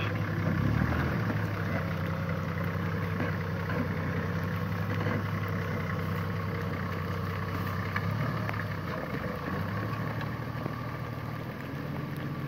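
Nissan Patrol's diesel engine running steadily at low revs as the 4x4 crawls through mud, its pitch shifting a little about a second in and again later.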